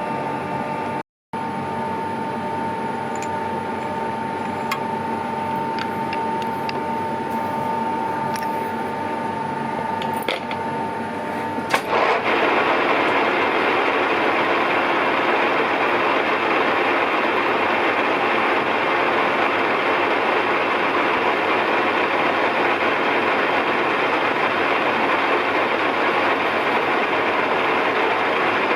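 Metal-turning lathe running with a steady whine. About twelve seconds in there is a click, and the sound changes to a louder, rougher and more even machine noise that holds steady.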